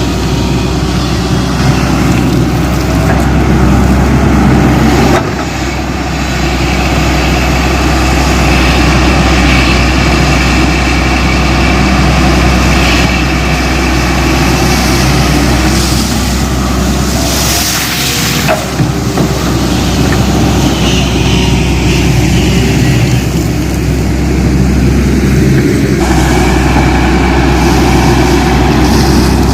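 Diesel engine of a JCB 210 excavator running steadily while working, loud throughout, with brief dips in level about five seconds in and again past the middle.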